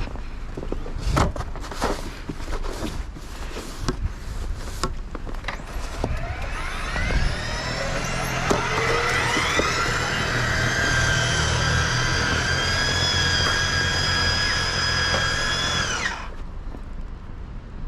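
Scattered knocks and handling noise, then a small motor spins up with a rising whine about six seconds in, runs steadily, and cuts off suddenly near the end.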